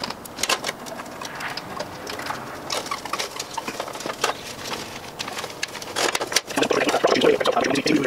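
Light clicking and scraping of thin sheet-steel parts being handled and marked with a pen.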